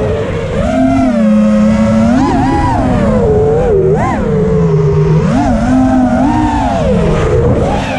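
Onboard sound of a 5-inch FPV racing quadcopter's Lumenier 2206 2350KV brushless motors spinning HQ 5040 three-blade props: a buzzing motor whine that rises and falls in pitch with the throttle, with quick sharp rises about two and four seconds in, over a rushing noise from the airflow.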